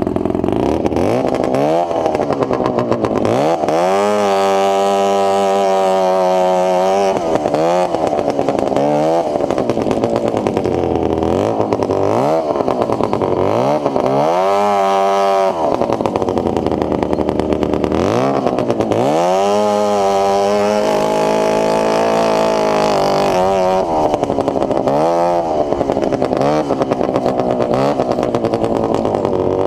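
A 440cc two-stroke snowmobile engine on a go-kart runs loud and revs over and over, its pitch climbing and falling every couple of seconds under throttle blips.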